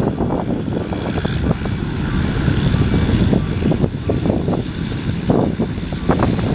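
Aircraft engine noise from a plane passing the airport, swelling through the middle and fading near the end, under heavy wind buffeting on the microphone.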